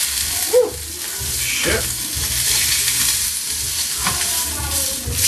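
Ahi tuna steak searing in a pan of hot oil: a loud, steady sizzle with spattering grease, from too much oil in the pan.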